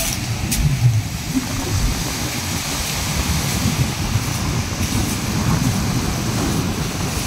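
Wind buffeting the microphone on an open beach, a low, uneven rumble throughout, with a faint wash of the sea behind it.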